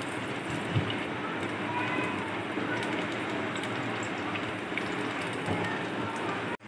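Sliced onions sizzling in hot oil in a steel pot, a steady hiss, with a spatula stirring through them. The sound cuts off abruptly just before the end.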